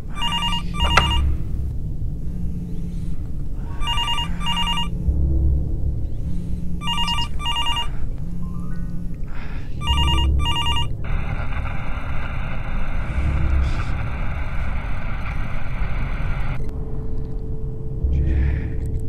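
Mobile phone ringing with a trilling double ring, repeated about every three seconds, over a low pulsing music score. The ringing stops about eleven seconds in, followed by a steady hiss and then a low steady hum near the end.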